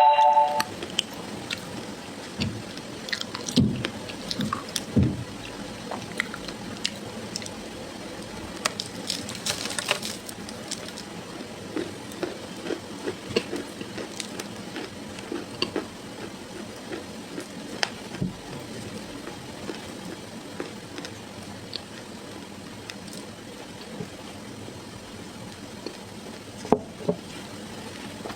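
Close-miked chewing of a snack bar: wet, squishy mouth sounds with many small crackles and clicks, and one sharper crunch near the end.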